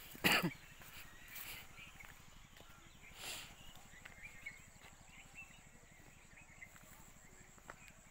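Two dogs at play: one short, loud dog yelp falling in pitch about a quarter second in, then a few fainter play noises.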